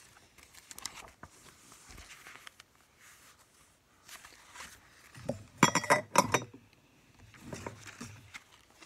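Handling noise from a paperback book being moved about close to the microphone: soft paper rustles, then a quick cluster of sharp clicks and knocks about five and a half seconds in, and a softer muffled shuffle near the end.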